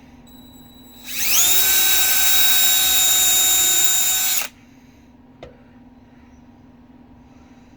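Power drill pre-drilling a pilot hole in pine plywood: it speeds up over a fraction of a second, runs steadily for about three seconds, then stops abruptly. A single small click follows about a second later.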